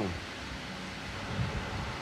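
Steady background noise, like a fan or wind on the microphone, with a short low bump about one and a half seconds in.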